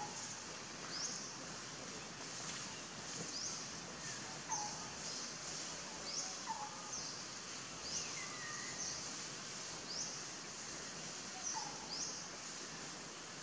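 Outdoor forest ambience: a short, high rising chirp repeats about once a second over a steady high hiss, with a few softer, lower bird calls in between.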